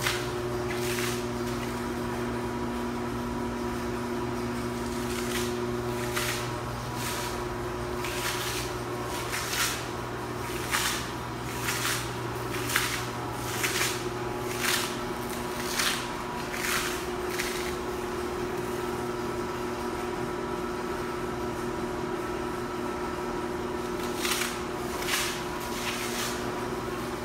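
Steady machine hum made of several fixed tones, with a run of soft scuffing footsteps on a concrete floor, about one a second, through the middle and again briefly near the end.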